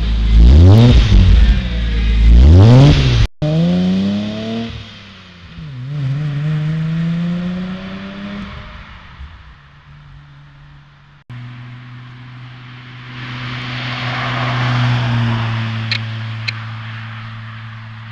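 Ford Probe GT exhaust with headers, a resonated test pipe and a Borla cat-back, revved hard three times at the tailpipes. After a cut, the car pulls away with engine revs rising, dipping and rising again. After a second cut, it cruises past at a steady engine note while tyre and road noise swell and fade.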